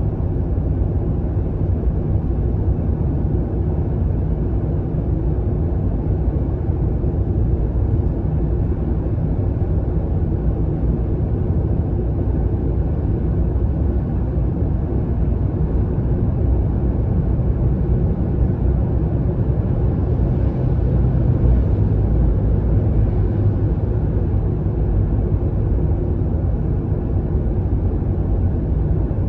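Steady low rumble of a car driving through a road tunnel, heard from inside the cabin: road and engine noise, a little louder about two-thirds of the way in.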